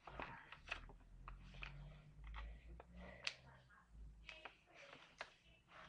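Faint crinkling and scattered ticks of a sheet of A4 paper being folded and creased by hand, over a low hum.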